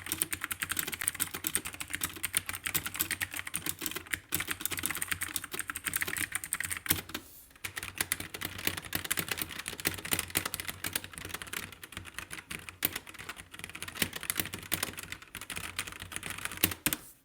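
Fast, continuous typing on Marvo KG962 60% mechanical keyboards, demonstrating the key sound of both the blue and the red switch versions, with a brief pause about seven and a half seconds in.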